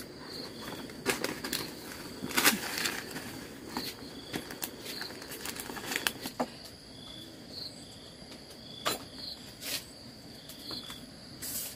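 Scattered rustling and crackling, loudest about two and a half seconds in and again near the end, over a steady high chirping of insects.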